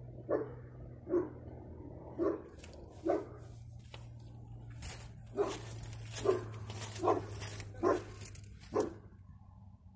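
A dog barking repeatedly, about one bark a second with a short pause in the middle, the barking stopping near the end.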